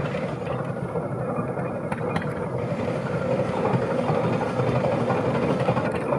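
Steam traction engine running steadily as it drives slowly past.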